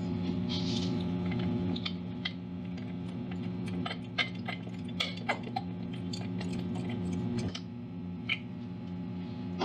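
Small metallic clicks and taps as a spark plug is turned by hand into a lawn mower engine's spark plug hole, scattered irregularly and busiest in the middle, over a steady low drone.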